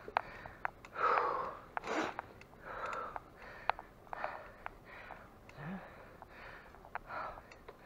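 A cyclist panting hard from exertion, with rhythmic heavy breaths coming more than once a second, and faint sharp clicks in between.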